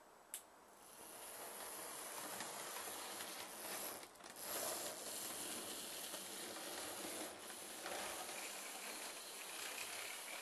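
Model train running along the layout's track: a steady mechanical whirr and rattle of motor and wheels that builds about a second in, with a few clicks along the way.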